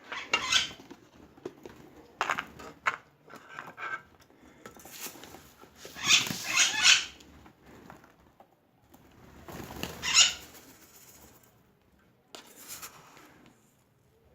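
Birds' wings flapping in about five separate bursts, the longest lasting about two seconds a little past the middle.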